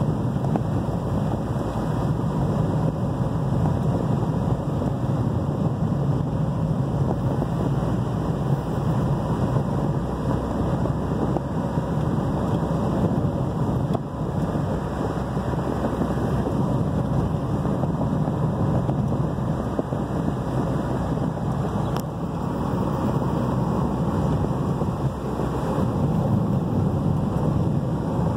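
Steady road and engine noise heard from inside a car's cabin as it drives along a rough, patched and potholed asphalt road.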